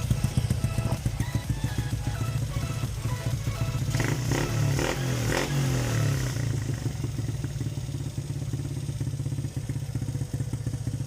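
Small single-cylinder motorcycle engine, freshly rebuilt with a 54 mm big bore, running steadily on its first start, with a louder stretch about four to six seconds in. It ticks because the tappets still need adjusting.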